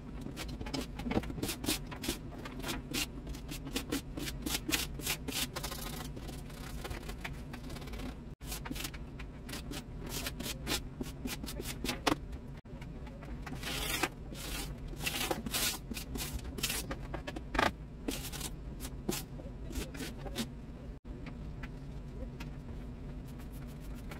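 A hand scraper scraping dried, crusted grime off a kitchen countertop in quick, repeated strokes.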